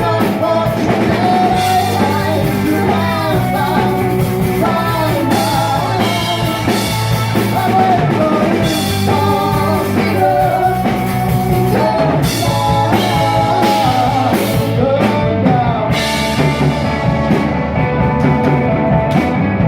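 Rock band playing live: a singer over guitars and a drum kit.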